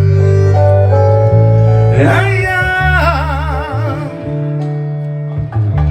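Live band playing the lead-in to a Latin pop song, with steady bass and sustained chords. About two seconds in, a singer cuts in with a long, wavering "Ay".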